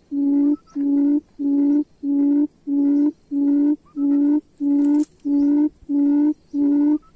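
Loudspeaker playing a recorded wild-quail lure call: a low hooting note repeated evenly, about one and a half to two times a second.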